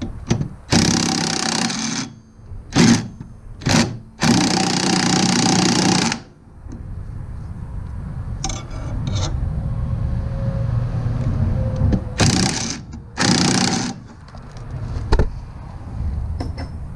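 Impact wrench firing in repeated bursts of a second or two on a snowmobile's seized rear-suspension trailing-arm bolt. A low steady hum runs between the bursts, and there is a sharp knock near the end.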